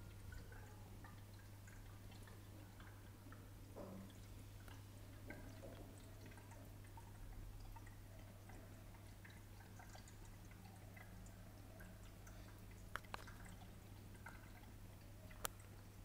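Faint aquarium sounds: a steady low hum with small drips and trickles of water, and a few sharp clicks near the end.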